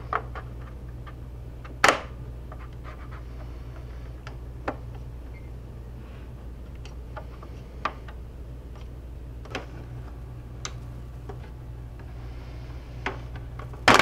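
Plastic snap clips of an all-in-one computer's back cover clicking loose one by one as it is pried off with a plastic spudger. There are scattered sharp clicks, with a loud snap about two seconds in and another at the very end as the cover comes free.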